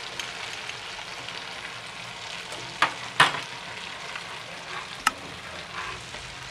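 Mustard and poppy seed paste with a little water sizzling and crackling in a hot frying pan, stirred with a spatula that scrapes and knocks against the pan a few times. The loudest knock comes a little after three seconds in.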